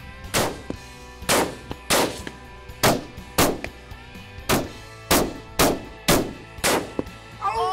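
A run of about ten rifle shots from Thompson Center Compass bolt-action rifles, sharp cracks each trailing off briefly, spaced roughly half a second to a second apart, over a steady music bed.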